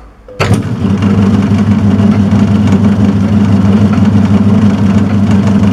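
Turnell & Odell metal lathe switched on: a click about half a second in, then its motor and spindle drive running with a steady hum as the newly fitted faceplate spins.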